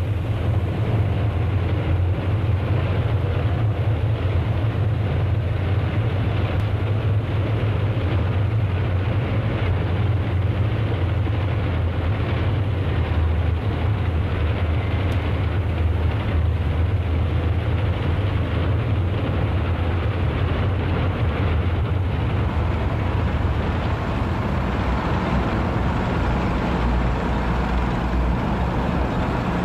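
A column of tanks driving past: a steady low drone of heavy engines with a noisy wash of running gear above it.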